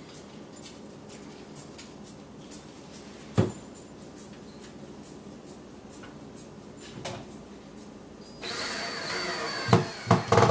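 Power drill with a Phillips bit driving a screw, its motor running for about a second and a half near the end, followed by a few sharp clacks. A single knock about three seconds in.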